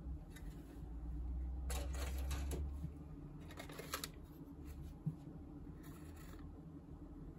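Plastic model-kit sprues being lifted and shifted in their cardboard box: three short rustling clatters, about two, four and six seconds in, over a low handling rumble.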